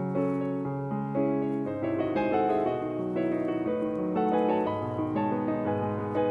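Background piano music: a melody of held notes over a lower accompaniment.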